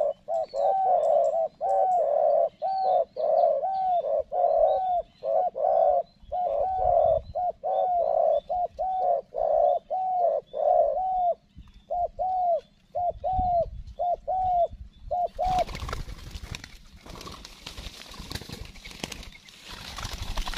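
Spotted doves cooing: a long, fast series of short low coos, about two a second, thinning out and stopping about three quarters of the way through. A rough rustling noise follows.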